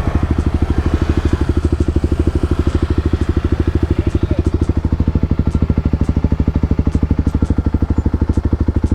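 Motorcycle engine running steadily, with an even throb of about ten pulses a second.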